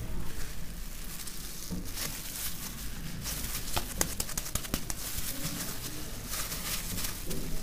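Hands kneading and pressing a soft ball of paratha dough on a marble worktop: soft rubbing and patting, with a few sharp clicks about four seconds in, over a steady low hum.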